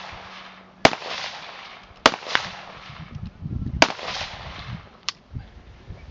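AR-style semi-automatic rifle firing single shots: three loud cracks a little over a second apart, each trailing off in a rolling echo, with a couple of fainter pops in between.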